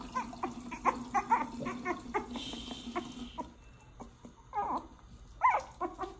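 Four-week-old puppy crying in many short, high whimpers and yelps while being bathed under a running tap: it does not like the bath.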